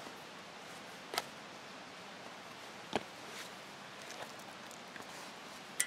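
Three small sharp clicks, about two seconds apart, from hand-sewing a bone button onto a leather pouch flap with tarred bank line, over a steady faint hiss.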